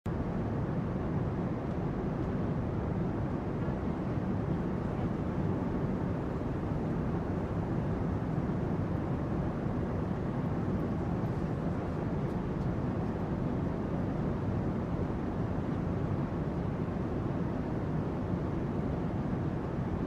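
Airplane cabin noise heard from inside: a steady, even rumble with a hiss above it, heaviest in the low range, with no distinct events.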